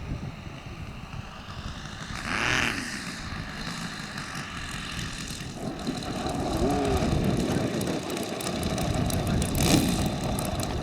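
Saito FG-90R3 three-cylinder four-stroke gasoline radial engine of a large radio-controlled biplane running at low throttle, swelling briefly a couple of times.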